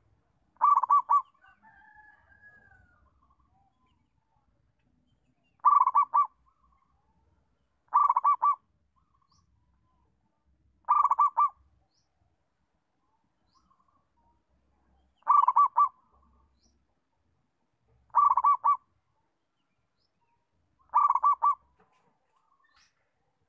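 Zebra dove (perkutut) cooing: seven short phrases, each a quick run of a few coo notes, spaced a few seconds apart.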